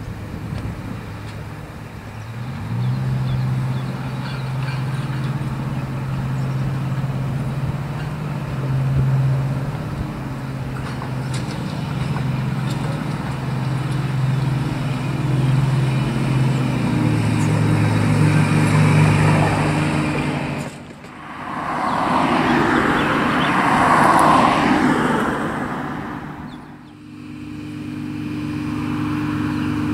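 Plasser-built EM 80 track evaluation car's engine running with a steady hum, picking up about two and a half seconds in as the car moves over the level crossing. A louder rushing sound lasts a few seconds about two-thirds of the way through, breaking off suddenly at both ends.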